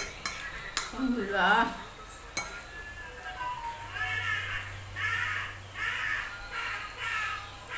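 A few sharp clinks of a metal spoon and fork against a ceramic plate, with a gliding call about a second and a half in and then a string of repeated voice-like calls about once a second.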